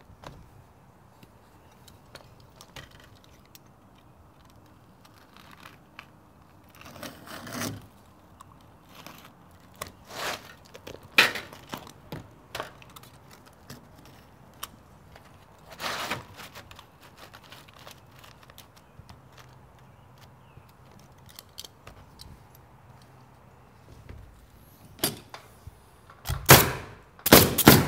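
Light handling of asphalt shingles and aluminum step flashing, with scattered taps, clicks and rustles. Near the end, a pneumatic coil roofing nailer fires a few sharp shots, driving roofing nails.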